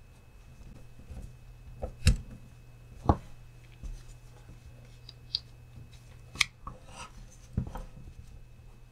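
Hard plastic parts of a Traxxas TRX-4M RC crawler's front axle clicking and knocking as they are handled and the chassis is set on a wooden bench: a few sharp knocks, the loudest about two and three seconds in, with lighter clicks and rubbing between.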